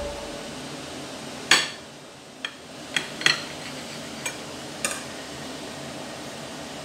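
Santoku kitchen knife cutting through a rolled tortilla wrap on a ceramic plate, the blade clicking and knocking against the plate about six times at uneven intervals, loudest about one and a half seconds in.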